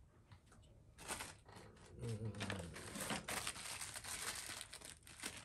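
Close crinkling and rustling from things being handled, starting about a second in and going on irregularly, with a faint voice muttering under it.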